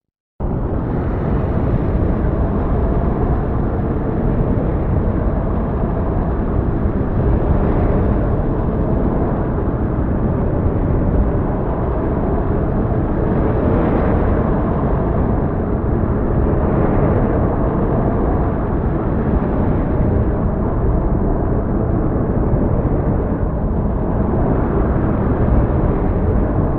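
Heavy storm ambience: a loud, steady rumbling roar, heaviest in the low end. It starts abruptly just after the beginning and fades out at the very end.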